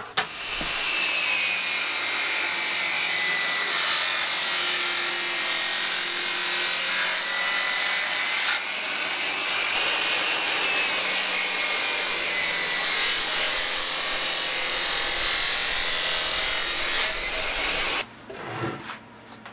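Portable table saw running and cutting through a wooden lid panel, a loud steady whine whose pitch sags slightly under load, with a brief dip partway through. The sound cuts off suddenly near the end.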